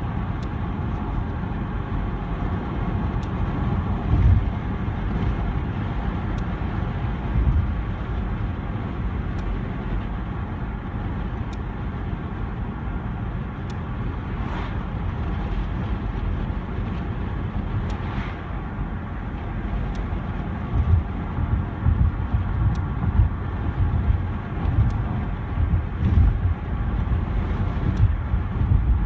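Interior of a moving car with a window open: a steady low rumble of engine and road noise. About two-thirds of the way in the low rumble turns uneven and pulsing.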